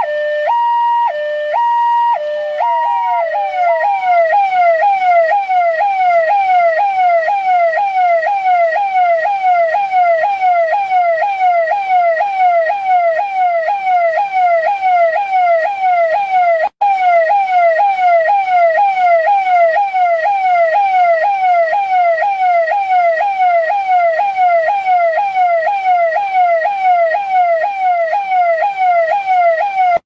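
Electronic police siren of the New Delhi police, first alternating between a high and a low tone, then about three seconds in switching to a fast, evenly repeating sweep that falls in pitch each time. It cuts out for an instant a little past halfway.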